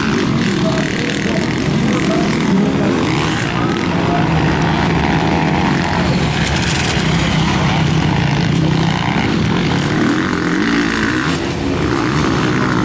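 Motocross motorcycles' engines revving up and down as they ride the dirt track, with people talking.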